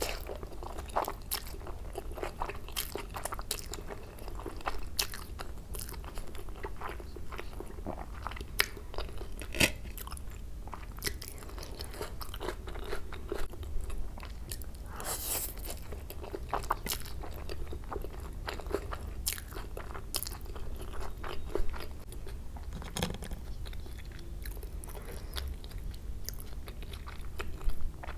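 Close-miked chewing of fried Maggi noodles, full of wet mouth clicks and smacks, with a slurp of noodles about halfway through.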